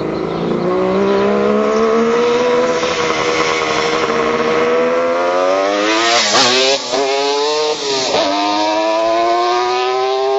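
Kawasaki 500 three-cylinder two-stroke running through WTF expansion chambers, accelerating hard with a rising engine note. Then a few quick dips in pitch, each climbing straight back, as it shifts up through the gears.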